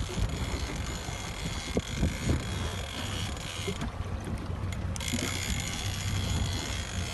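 Big-game fishing reel being cranked in with a fast ticking whir while the rod is bent under a hooked tuna; the winding stops for about a second near the middle, then starts again.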